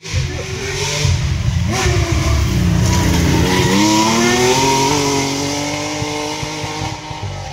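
Rally car on a gravel stage, engine pitch dipping about two seconds in, then climbing steadily as it accelerates hard away, over a loud rumble of tyres on gravel.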